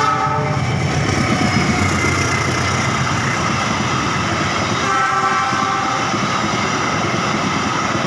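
Passenger train coaches rolling past at close range: a steady, loud rumble of wheels on rail. Two short pitched tones rise above it, one right at the start and one about five seconds in.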